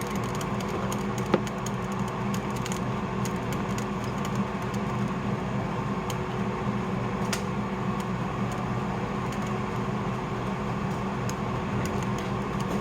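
Air fryer running with pork cooking inside: a steady fan hum, with scattered light clicks and one sharp click about a second and a half in.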